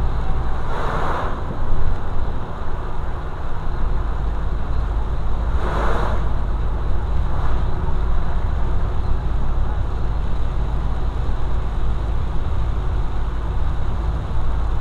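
Steady low drone of a vehicle driving on a wet highway, heard from inside the cab, with tyre noise on the wet road. Two brief whooshes come about one second and six seconds in.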